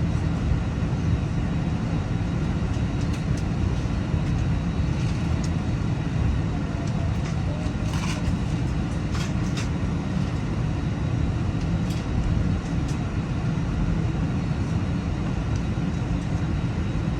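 Steady low rumble inside an Airbus A321's passenger cabin: engine and air-system noise from an airliner on the ground before takeoff. A few faint clicks come through over it near the middle.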